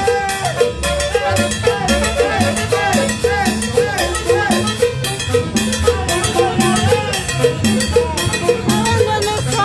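A small tropical dance band playing live: drum kit and cymbal, conga, upright bass and horns over a quick, steady percussion beat.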